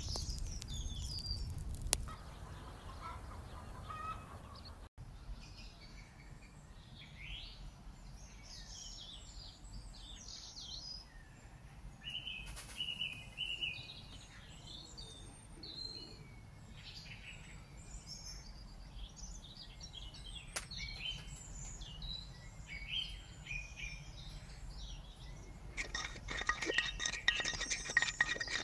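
Birds chirping with scattered short calls over a low steady rumble. Near the end, rapid clinking and rattling begins.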